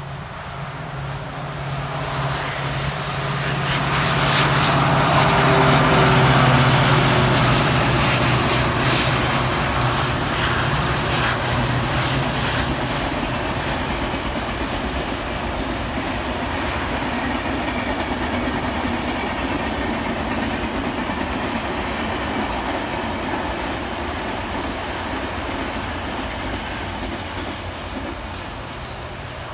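Indian Railways express train passing at speed: a low hum and rushing noise build to their loudest a few seconds in, then a long rake of coaches follows with wheels clattering rhythmically over the rail joints, easing off near the end.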